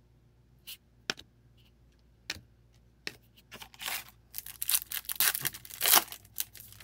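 A few light clicks and taps of trading cards being handled, then a foil O-Pee-Chee Platinum hockey card pack wrapper torn open and crinkled. The tearing starts about four seconds in and is loudest near six seconds.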